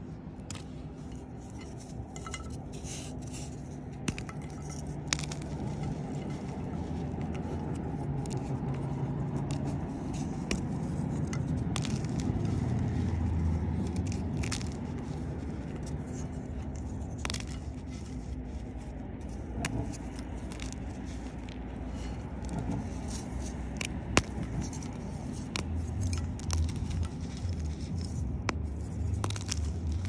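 Block of gym chalk being crushed and crumbled by hand in a ceramic bowl: scattered sharp crunches and cracks with scraping of the powder, over a steady low hum.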